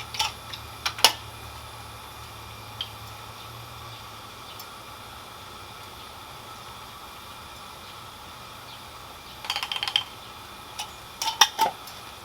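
Light metal clinks and rattles of cookware and coffee gear being handled, a couple about a second in and a cluster near the end, over a faint steady hum.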